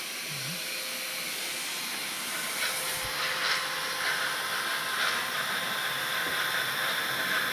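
Vacuum cleaner running with a steady hiss, growing a little louder about a third of the way in.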